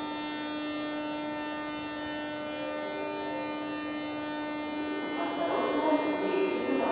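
An 81-717/714 metro train standing at the platform with its doors open, its electrical equipment giving off a steady hum with a whine of many high tones. About five seconds in, a voice comes in over the hum.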